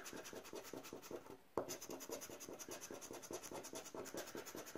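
Scratching off a Rubbelstar scratch-off lottery ticket with the edge of a cardboard strip: rapid, even scraping strokes rubbing away the coating over the prize fields. There is a short break about a second and a half in.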